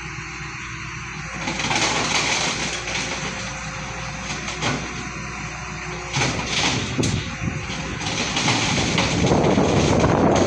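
Heavy machine's diesel engine running, with several sharp metal knocks; it grows louder near the end.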